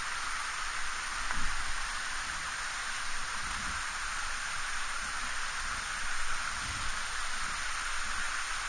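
Steady rush of a mountain stream running high after rain, an even hiss of water with a few soft low knocks.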